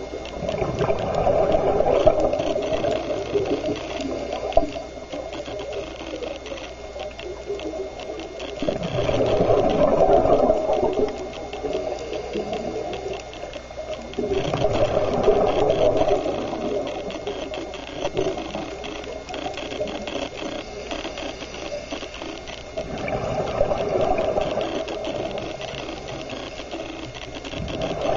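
Scuba regulator underwater: four long bursts of exhaled bubbles several seconds apart, the rhythm of a diver's breathing, over a constant fine crackling.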